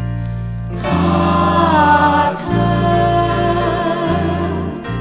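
Thai pop song played from a vinyl record: a mixed vocal group enters about a second in, singing sustained harmony over a band with steady bass notes.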